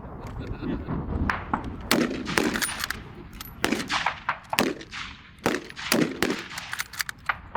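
A string of full-power rifle shots at irregular spacing, about a dozen in all and some in quick pairs, from several shooters firing on the line. Wind buffets the microphone underneath.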